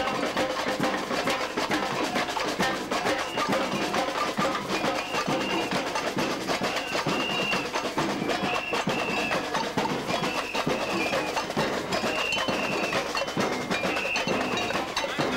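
Samba drum section playing: metal-shelled snare drums and tamborims beat a fast, dense samba rhythm. From about five seconds in, short high notes repeat above the drums.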